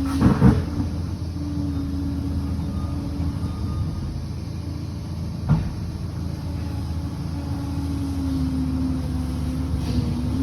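Liebherr 746 crawler bulldozer's diesel engine running steadily under work, with a short cluster of knocks at the start and one sharp knock about five seconds in.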